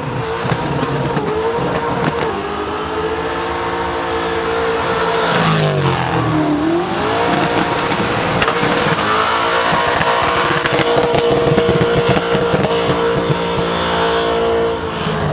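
LS V8 engine of a Holden Commodore held at high revs through a burnout, rear tyres spinning on the pad. The revs drop briefly about six seconds in and again near the end, then climb back up.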